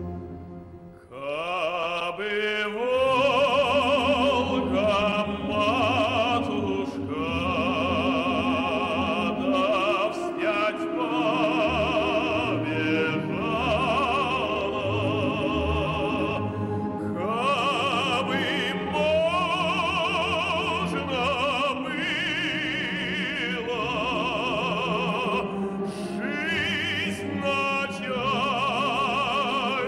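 Operatic tenor singing a slow song with wide vibrato over instrumental accompaniment; the voice comes in about a second in with a rising slide into the first note.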